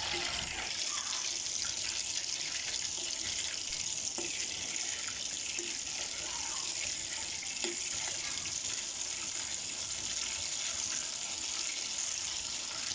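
Butter boiling down into ghee in a steel pan: a steady, even frothy sizzle, with a few faint taps of a steel ladle stirring. The foam is still bubbling, so the ghee is not yet done.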